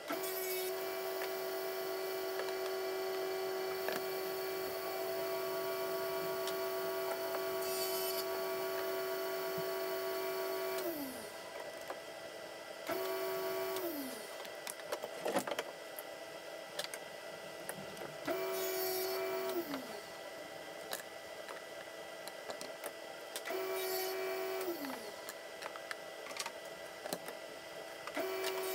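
Table saw running with a steady motor whine, cutting plywood in a few short passes, then switched off and back on several times, its pitch falling away each time it stops. A few sharp knocks of plywood pieces being handled come in between the runs.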